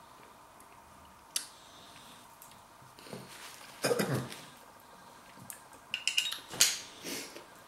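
A man clears his throat with a cough about four seconds in, after a taste of hot peri-peri sauce. A sharp click comes near the start, and light clinks and knocks of a spoon and a sauce bottle being handled come near the end.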